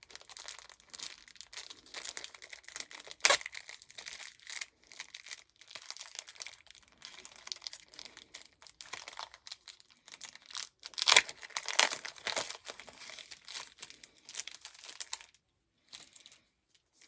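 Trading card pack wrapper crinkling as it is handled, with louder bursts of crackling about three seconds in and again around eleven to twelve seconds in.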